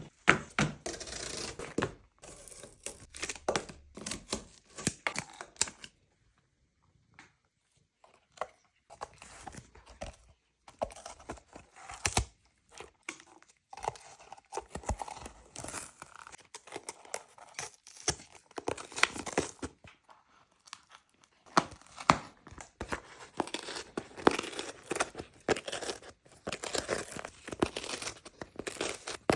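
A cat biting, tearing and crunching cardboard with its teeth, in irregular bursts of ripping and crackling broken by a couple of short pauses.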